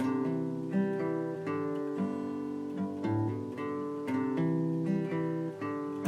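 Instrumental intro music: an acoustic guitar picking chords, each note starting sharply and fading, a new note or chord about every half second.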